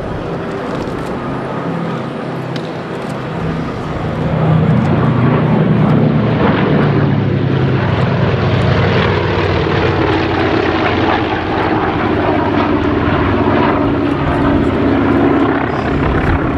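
Second World War piston-engined fighter aircraft flying past, their propeller engines running steadily; the drone grows louder about four seconds in and stays loud.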